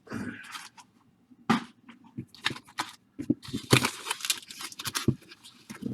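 Plastic baseball card pack wrapper crinkling and tearing as it is pulled open, with the cards inside rustling as they are handled, in short scattered crackles with a brief pause about a second in.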